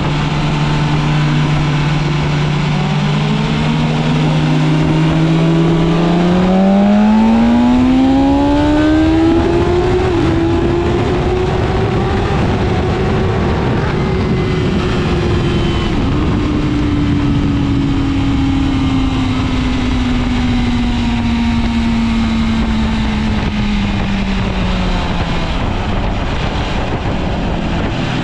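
BMW S1000RR's inline-four engine running hard on track, heard from the rider's seat over heavy wind rush. Its pitch holds steady, climbs over a few seconds, then falls slowly.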